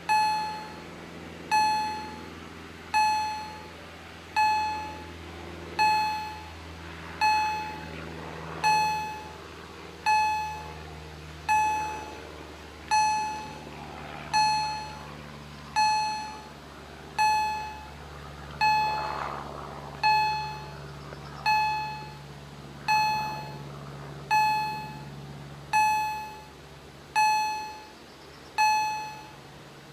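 Auer EHL-S10 electronic level-crossing bell striking a single ding about every one and a half seconds, each one ringing out and fading before the next: the warning that the crossing is closed for an approaching train. A faint low hum runs underneath.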